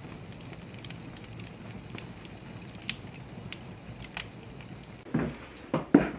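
Wood fire crackling in an open hearth while hands press and work damp cornmeal dough in a wooden trough. Near the end come two heavier knocks.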